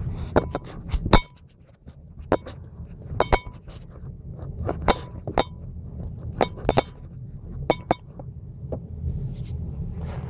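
Airsoft 1911 pistol being handled and cycled: a string of sharp metallic clicks and clinks from its slide and parts, some in quick pairs, a few ringing briefly, over a steady low hum.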